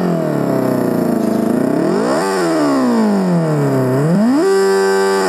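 An electronic exhaust sound simulator plays a sports-bike engine sound through its speaker, revving as its throttle wire is worked by hand. The note falls, climbs to a peak a little over two seconds in, drops again, then rises quickly and holds steady near the end.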